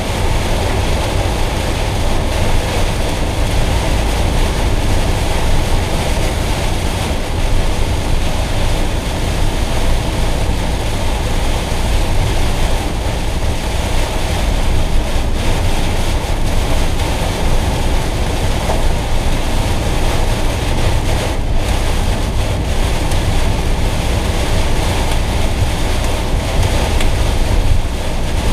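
Steady noise inside a Citroën Jumper van's cab at motorway speed in a heavy downpour: rain on the body and windscreen and tyres running through water on the road, over a deep rumble.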